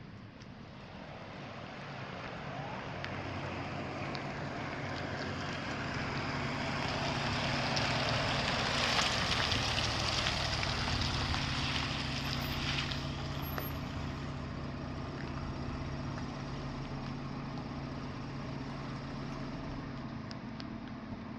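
Ford Expedition SUV driving slowly up and past on the pavement, engine running and tyres rolling, the sound swelling to its loudest about nine seconds in and then easing off. Its engine keeps running steadily afterwards.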